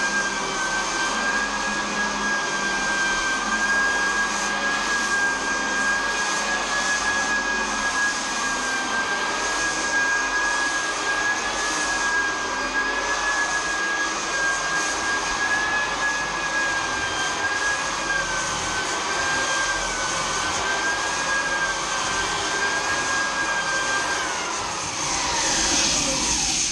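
Floor edger sander running steadily with a high-pitched motor whine while sanding down the seams, filler and staple lines of a plywood subfloor. Near the end its whine falls in pitch as the motor spins down.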